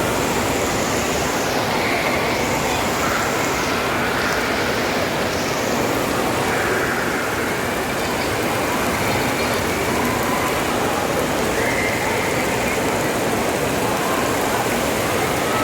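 A steady rush of falling, splashing water.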